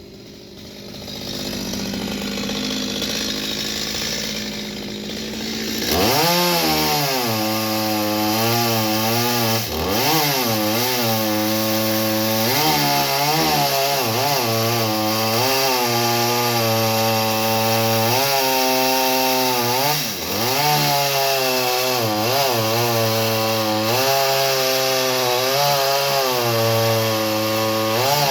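Chainsaw running at low speed for about six seconds, then opened up to high speed and held there. Its pitch sags briefly several times as the chain bites into the wood.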